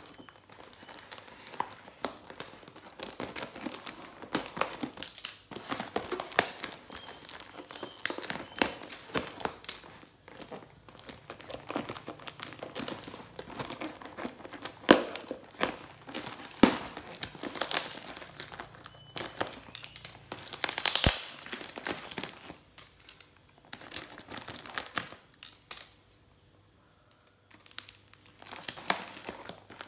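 Plastic packing film crinkling and tearing while scissors cut open a wrapped parcel: irregular sharp crackles and snips, with a short quiet spell a few seconds before the end.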